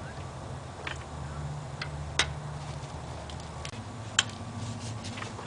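A handful of sharp, irregular metal clicks from an Allen key being worked on the socket-head screws of a lathe chuck. Two of the clicks are louder than the rest, and a low steady hum runs underneath.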